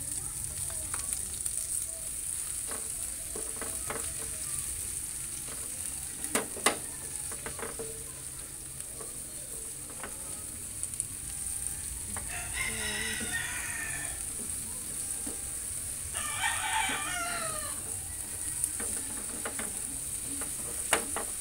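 Chopped garlic and onions sizzling in hot oil in a frying pan, stirred with a spatula, with a sharp knock of the spatula on the pan about a third of the way in. A rooster crows twice in the background, a little past halfway and again about four seconds later.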